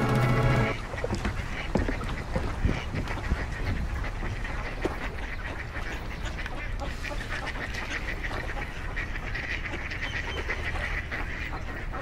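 Music cuts off under a second in, then a flock of ducks quacks, with many short calls overlapping.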